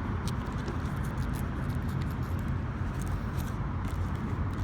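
Steady low rumble of city traffic in the background, with faint scattered clicks and rustles as a small honey mustard sauce container is handled and worked at to open it.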